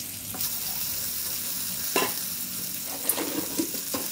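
Small boiled potatoes frying in butter in a pan, a steady sizzle. A few sharp knocks and clinks of utensils and dishes break through about two seconds in and several more times near the end.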